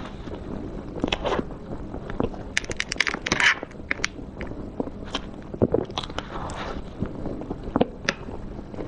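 Close-miked mouth sounds of a person chewing a mouthful of chocolate cream cake: a run of short wet clicks and smacks. Near the end a metal spoon scrapes through the cake.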